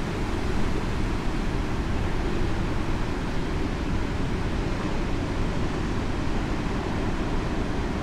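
Heavy ocean surf breaking and washing over a rocky shore: a steady, deep rumble of churning water with no single wave crash standing out.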